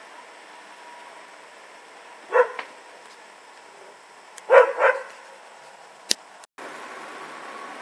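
Standard poodle barking in short barks: one about two and a half seconds in, then two quick barks near five seconds. A sharp click follows just after six seconds.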